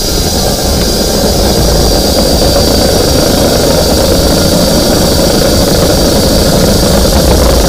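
Motor of a flexible-shaft drain-cleaning machine running steadily, with a thin high whine, while its cable works in a clogged urinal drain.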